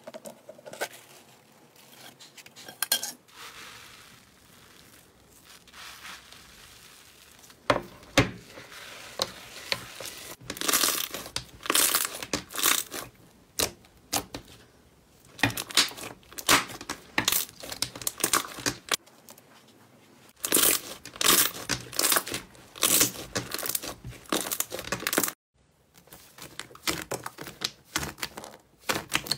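Slime being squeezed, pressed and stretched by hand: dense crackling and popping of trapped air, in clusters with a few quieter stretches between them.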